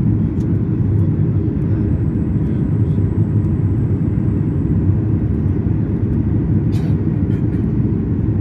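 Steady low rumble of a Boeing 737 MAX 8's CFM LEAP-1B engines and airflow, heard inside the passenger cabin, holding an even level, with a few faint clicks over it.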